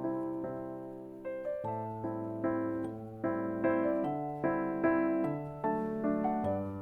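Background music: a light piano waltz, single notes and chords struck about every half second over held bass notes.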